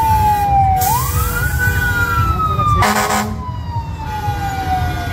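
Emergency-vehicle siren wailing: its pitch falls, winds back up about a second in, then slides slowly down. A short loud blast comes about three seconds in, over a steady low rumble.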